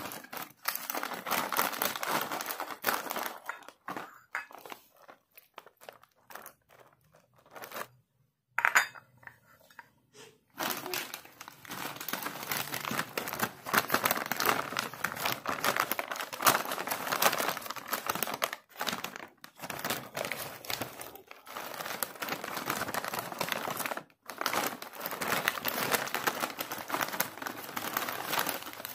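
Plastic packet of dry soya chunks being squeezed and turned in the hands, its film crinkling, with a quieter, patchier stretch in the first third.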